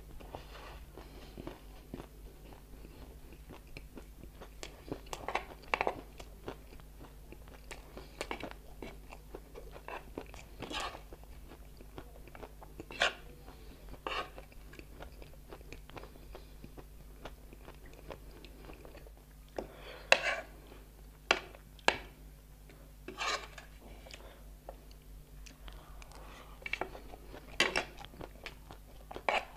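Close-miked chewing of dry chatpate, a crunchy Nepali snack, with sharp crunches at irregular intervals as spoonfuls are bitten and chewed.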